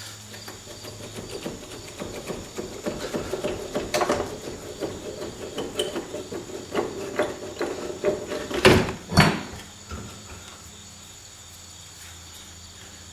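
Heavy steel front suspension cross member of a Rolls-Royce Phantom III being worked loose from the chassis: irregular metallic rattling, scraping and knocking, with two loud clunks about nine seconds in.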